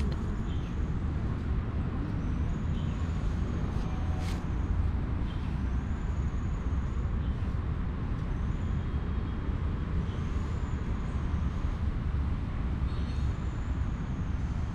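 Steady low rumble of distant road traffic, with a faint high-pitched call repeating about every two and a half seconds.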